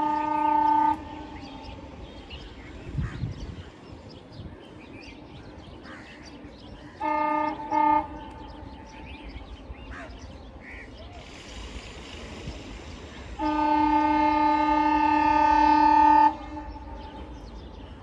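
Horn of an ALCO WDM-3D diesel locomotive sounding a series of blasts. There is a short blast of about a second, then two quick short blasts about seven seconds in, then one long, loud blast of about three seconds near the end.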